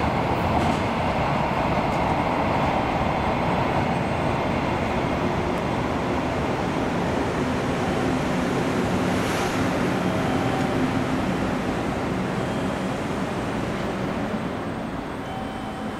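Container wagons of a long freight train rolling away on the rails: a steady rumble of wheels that slowly fades over the last few seconds.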